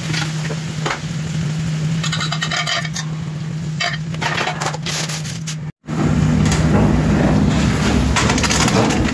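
Chicken satay skewers sizzling and crackling on a hot griddle pan over a steady low hum. After a sudden break about six seconds in, louder rustling and clattering as an oven-mitted hand handles a foil-covered dish in the oven.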